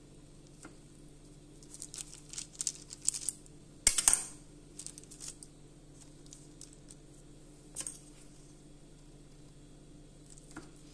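Table knife cutting a log of soft cookie dough, its blade clicking against the hard work surface beneath the plastic sheet, with a cluster of light clicks and one sharp knock near the middle.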